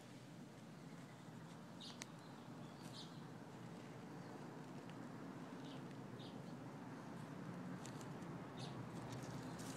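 Faint outdoor ambience: a steady low background hum with a handful of short, high bird chirps scattered through it.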